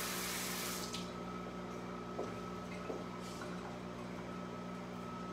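Kitchen faucet running into the sink and shut off about a second in, as hands are rinsed; a steady hum continues underneath.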